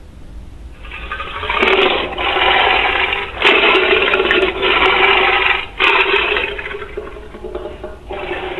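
Rushing, water-like noise in several surges of about a second each with short breaks between them, starting about a second in.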